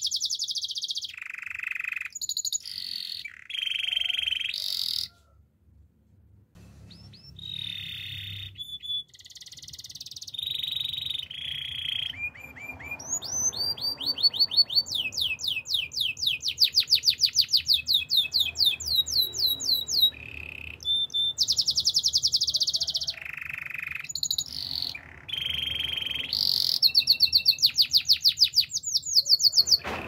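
A white domestic canary singing a long, varied song: whistled phrases and runs of rapid trills of quickly repeated notes, with a brief pause about five seconds in.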